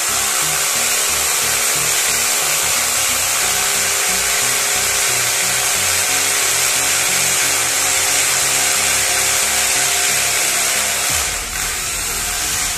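Corded electric hammer drill boring into a plastered masonry wall, running steadily at full speed and easing off briefly near the end.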